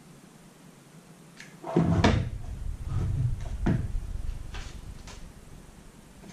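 Knocks and clicks from handling a Volvo VEA engine control module and its connecting wires on a wooden table: a pair of sharp knocks about two seconds in, duller thuds around three seconds, another knock just before four seconds, then a few light clicks.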